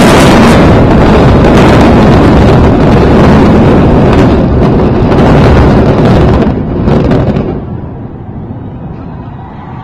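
Loud, sustained rumble and rush of the Noida twin towers collapsing in a controlled explosive demolition, easing off after about seven and a half seconds.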